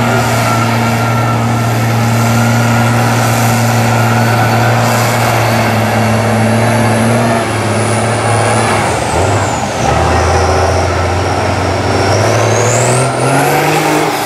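Lifted Chevy mud truck on tractor tyres, its engine running loud and steady under load through deep mud. About two-thirds through the engine note drops, then it revs up again near the end as the truck climbs out of the hole, with a high whine that falls and rises along with the engine speed.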